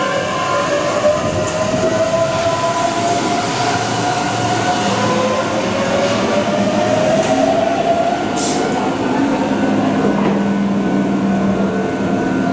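Keihan 7000-series electric train pulling out and accelerating, its VVVF inverter and traction motors whining in a rising pitch over rail and wheel rumble. A short hiss comes a little after the middle.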